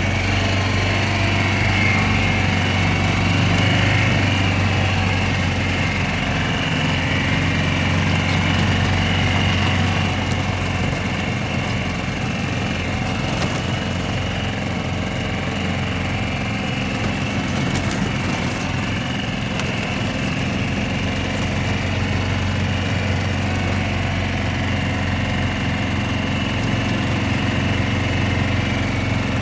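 Small gasoline engine of a golf cart running steadily while driving, a little louder in the first ten seconds.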